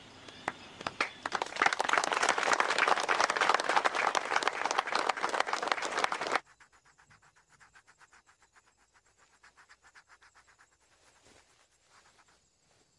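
A crowd of prisoners applauding, building up over the first second and cutting off abruptly about six seconds in. After the cut there is only faint, rapid ticking.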